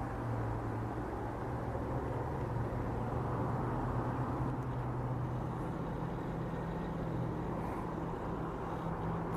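Steady low engine drone of road traffic, its low hum shifting slightly higher partway through.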